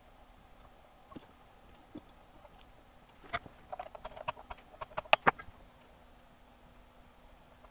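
Soldering work on a circuit board: a few faint taps, then, about three seconds in, a quick run of sharp light clicks and taps from tools and capacitor leads being handled against the board, the loudest a little past the middle, before it goes quiet again.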